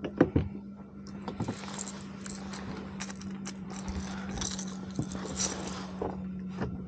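Sharp clicks and knocks of fishing gear being handled on a kayak, loudest in the first half second, then scattered lighter ticks and rattles over a steady low hum.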